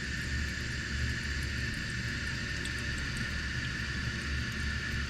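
A newly installed toilet fill valve running as the tank refills after a flush: a steady hiss of water with a thin high tone running through it.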